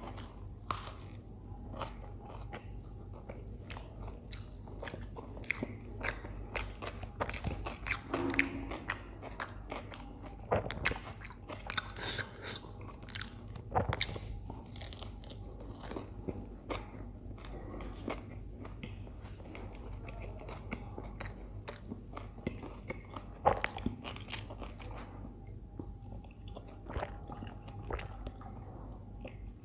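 Close-miked biting and chewing of a toasted aloo (potato) sandwich: irregular, sharp crunches of the toasted bread with chewing in between.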